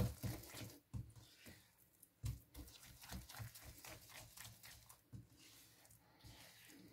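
Silicone spatula stirring thick cornmeal porridge in a non-stick frying pan: faint, irregular squelches, scrapes and soft knocks, with a couple of louder ones near the start and about two seconds in. The porridge is cooked down so far that butter is starting to separate from it.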